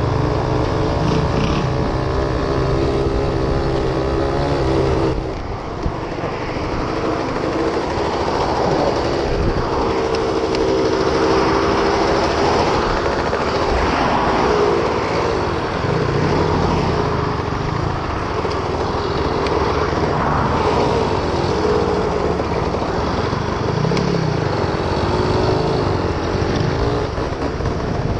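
1973 Suzuki RV75's small two-stroke single-cylinder engine running under way, its revs rising and falling with the throttle, with a brief drop about five seconds in, over steady wind noise on the microphone.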